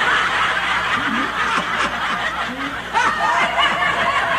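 Several people laughing together in response to a joke's punchline, many voices overlapping in a sustained burst of laughter.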